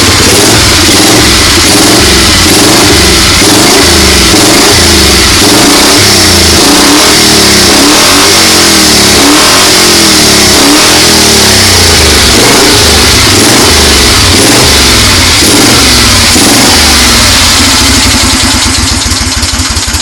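1970 Moto Guzzi Ambassador's air-cooled transverse V-twin running for the first time after a full rebuild, loud and close, with the throttle blipped up and down over and over. It is running now that the ignition timing has been corrected by swapping the plug leads. The level eases off a little near the end.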